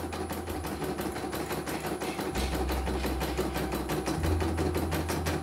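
Household embroidery machine stitching a design, its needle clicking in a fast, even rhythm over a low motor hum that shifts as the hoop moves. It is running smoothly, with no trouble.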